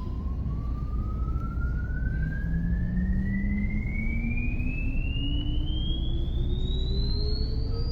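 Volkswagen ID.4 electric SUV emitting its external warning sound: slow electronic tones gliding steadily upward in pitch, a high one throughout and a low one joining about two seconds in, over a low hum. The car gives this sound when it has lost communication with its system and is not operational, to alert bystanders.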